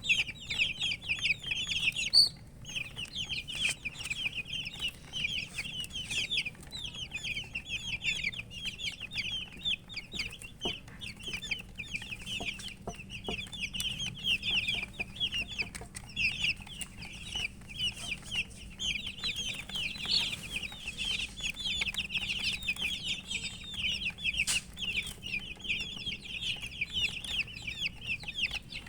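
A brood of baby chicks peeping continuously: many short, high, downward-sliding chirps overlapping, with a brief pause just after two seconds in. The uploader puts the chirping down to thirst for drinking water.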